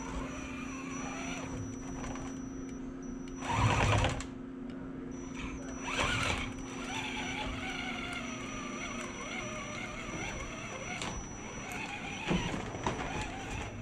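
Axial SCX10 RC scale crawler's electric motor and geared drivetrain whining steadily as it creeps up a wooden ramp. Two louder bursts of noise come about four and six seconds in, and a shorter one near the end.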